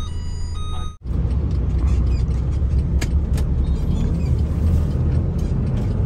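Semi-truck tractor unit's diesel engine running steadily under way, a deep low rumble heard inside the cab, with a couple of sharp clicks about three seconds in. The first second, before a cut, carries short steady beeping tones over the engine.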